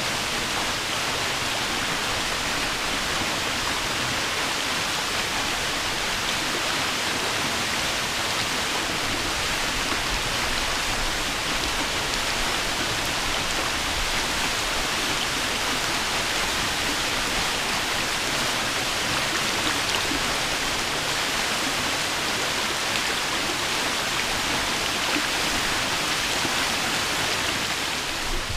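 Cascada Arcoíris waterfall: falling water making a steady, even rushing hiss that doesn't change.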